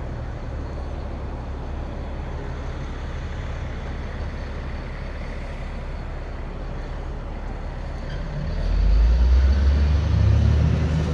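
A car on the move, towing a small trailer: steady low road and engine rumble that grows louder about eight and a half seconds in.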